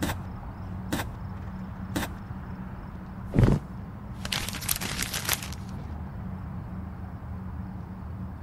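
Three light footsteps about a second apart, then a heavier thump about three and a half seconds in as a man sits down on a bed; this thump is the loudest sound. Paper rustles for about a second after it, over a steady low hum.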